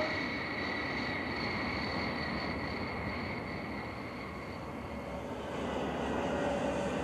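Jet airliner engine noise: a steady rushing sound carrying a high whine that fades over the first few seconds, then a lower steady tone comes in near the end.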